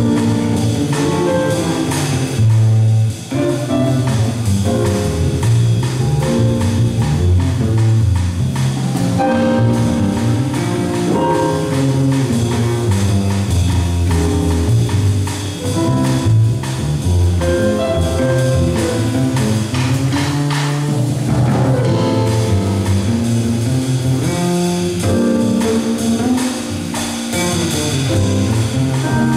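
Live jazz piano trio playing, with the plucked double bass prominent in a busy low line and the drum kit keeping time on cymbals.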